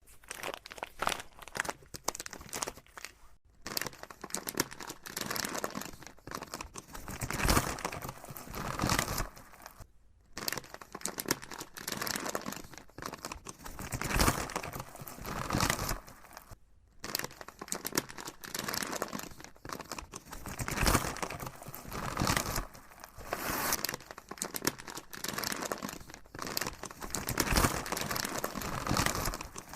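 Packaging being handled and crumpled: dense, irregular crinkling and crackling in uneven bursts, with a few short pauses between handlings.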